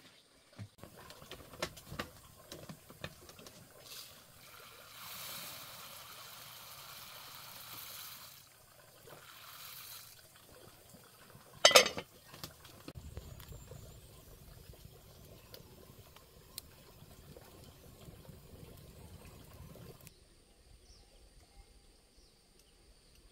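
Water pouring for a few seconds, then a single sharp clank from a cast-iron pot lid being handled, the loudest sound. A low steady rumble follows for several seconds before things go quiet.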